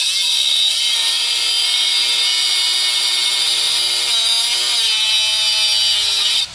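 High-speed power tool running continuously as it cuts into the steel head of a stripped Phillips brake-rotor screw, a steady high-pitched grinding hiss that stops suddenly at the end.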